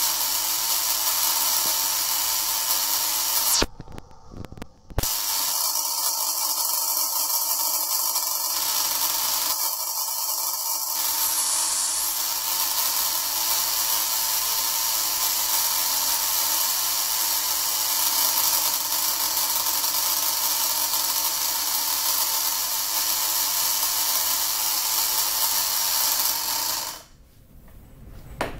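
Homemade machine for working the valve seat of a Bosch common-rail injector running, its tool striking the seat at a fast rate in a dense mechanical rattle. It cuts out for about a second about four seconds in, then runs on and shuts off near the end.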